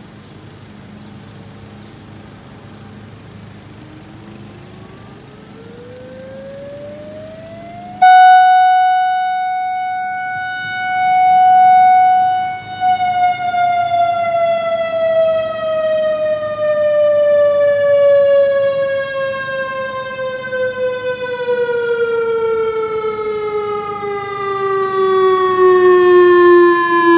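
ASC RE-1600 civil-defense tornado siren winding up: faint and rising in pitch from about four seconds in, then suddenly much louder at about eight seconds as it holds one steady pitch. From about thirteen seconds on it slowly winds down, the pitch falling steadily as the rotor coasts to a stop.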